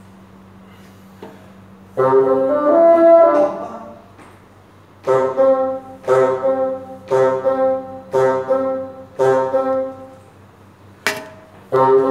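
A bassoon plays a short phrase, then a row of five detached notes about a second apart, then a short, sharp note and another note near the end.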